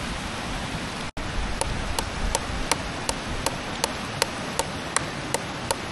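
Sharp, evenly spaced taps with a slight metallic ring, nearly three a second, starting about a second in: a coin being knocked into the wood of a wishing stump. A steady rush of stream water is heard underneath.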